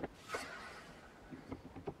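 Faint metal handling sounds, a soft scrape and a few small clicks, as the padlock is freed from a small cast-iron bench vise and gripped with pliers.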